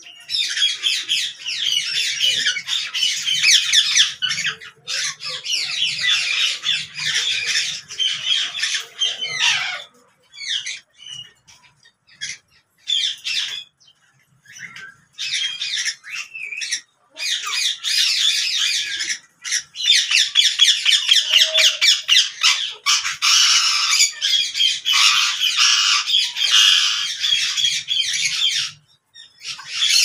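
Alexandrine parakeets squawking in long runs of harsh, rapid calls. The calling breaks into a few short calls with gaps for several seconds in the middle, then starts up again.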